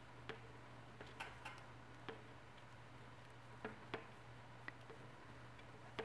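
Knitting needles clicking lightly against each other as stitches are worked from one needle to the other: faint, irregular single clicks, roughly one every half second to a second, over a low steady hum.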